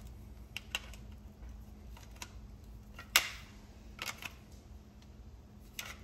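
Light clicks and knocks of a DryFireMag dry-fire training magazine being handled and fitted into a Glock 19X pistol, the sharpest about three seconds in.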